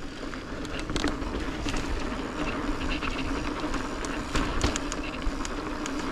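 Mountain bike rolling over rocky trail: a steady buzzing hum from the moving bike, with frequent small clicks and knocks as it rattles over the rock.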